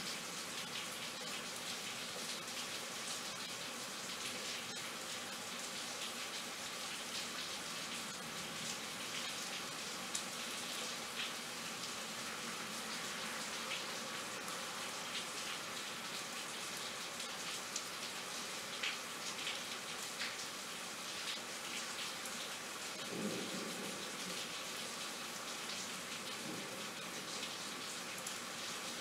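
Rainstorm: steady rain hissing, with many close drops ticking throughout.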